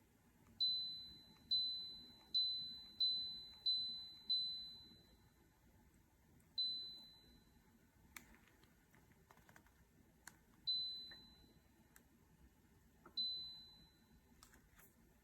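Electronic beeps from a let'me ultrasonic humidifier's control panel as its buttons are pressed: six short high beeps in quick succession, then three more spaced out, with a few faint clicks in between.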